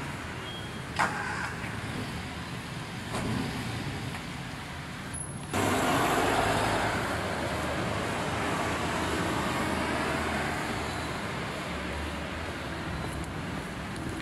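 Street traffic: cars passing on a village main street. A brief dropout a little over five seconds in, after which the noise is louder as a car passes close.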